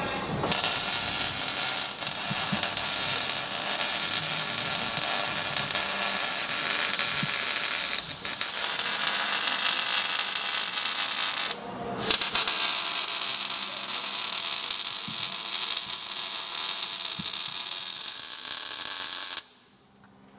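MIG welder arc crackling steadily as it lays weld on steel. It pauses briefly about twelve seconds in, then starts again and stops near the end.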